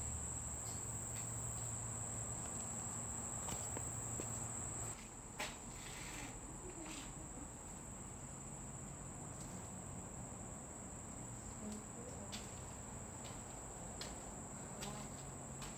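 Insects in the woods droning steadily with a high, continuous whine, with scattered faint clicks. A low hum underneath stops suddenly about five seconds in.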